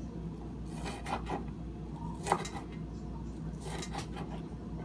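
Kitchen knife cutting a small white onion on a wooden cutting board: a few separate cuts and scrapes, the sharpest a little past two seconds in, over a steady low hum.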